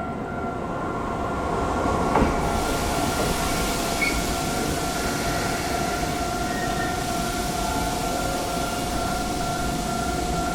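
Keisei Chiba Line train passing over a level crossing, the wheel and rail noise growing louder about two seconds in, while the crossing's warning bell keeps ringing.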